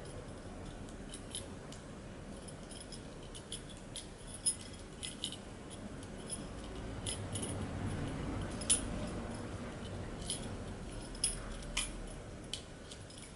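Scattered light metallic clicks and scrapes as a tool works against the metal valve tube of an Aqualung Legend Glacia regulator second stage during hand disassembly, with duller handling noise in the middle.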